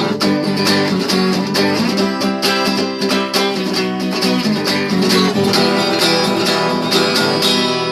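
Guitar strummed quickly and steadily in a driving rhythm, the last chord starting to ring out and fade right at the end.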